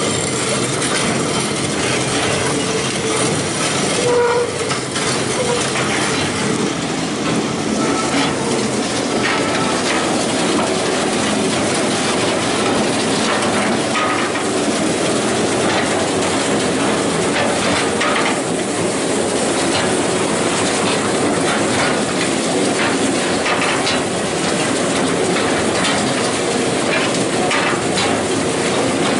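Wróblewski WK-4 chain manure scraper running: its steel link chain clatters steadily as it drags along the gutter and over its guide wheels.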